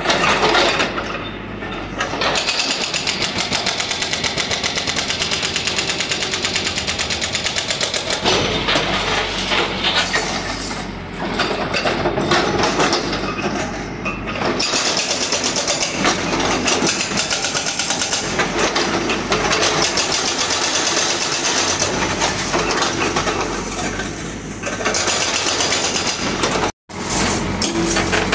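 Hydraulic breaker on a CAT backhoe loader's arm hammering concrete and brick walls in rapid, steady blows, over the backhoe's diesel engine running. The hammering pauses briefly a few times, and the sound cuts out for an instant near the end.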